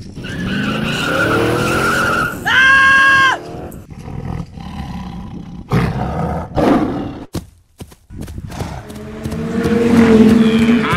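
Added animal sound effects: a rough roar first, a short loud high screech about two and a half seconds in, several heavy thuds in the middle, then a run of high wavering chirps near the end.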